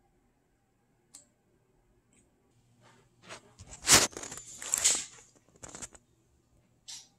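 Handling noise from the recording phone as it is moved: a burst of rustling and rubbing lasting about three seconds, loudest about four seconds in, with a few faint short ticks before and after.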